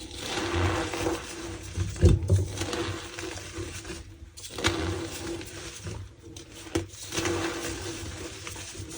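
Reformed gym chalk block squeezed and crumbled by hand, giving squeaky, crunchy strokes about once a second, with a sharp crack about two seconds in.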